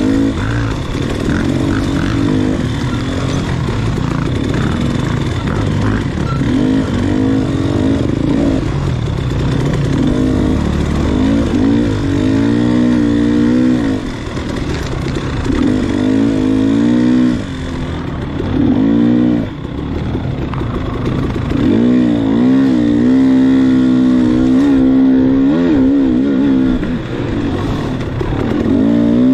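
Enduro dirt bike engine revving up and down under throttle, its pitch rising and falling every couple of seconds.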